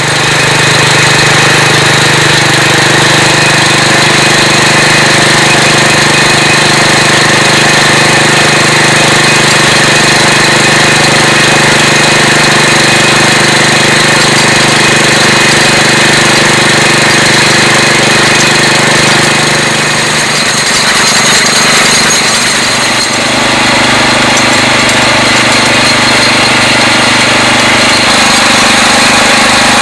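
Mobile Drill Minuteman portable auger drill rig's engine running steadily and loud. A little past two-thirds through, its note dips and changes, then runs on steadily.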